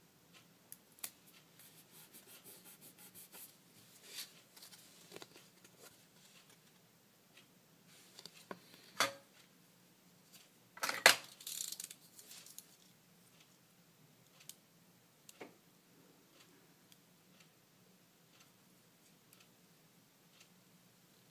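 Hands handling paper card and small craft tools on a cutting mat: scattered taps, clicks and paper rustles. A quick run of small clicks comes about two seconds in, and the loudest clatter comes around eleven seconds in.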